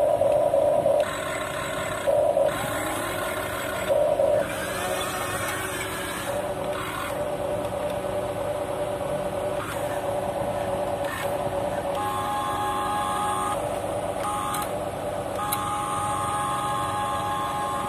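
Small electric motors and gearboxes of a Huina 1550 radio-controlled excavator whining as its upper body swings round. The whine comes in short bursts at first, then runs more steadily, and steps up to a higher pitch about two-thirds of the way through, with brief pauses.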